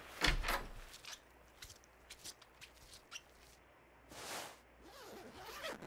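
Clothes being rummaged through in a bag: soft fabric rustling and small handling clicks, with louder swishes just after the start and about four seconds in.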